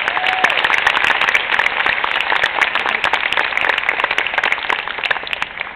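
Audience applauding: dense clapping that begins to fade near the end.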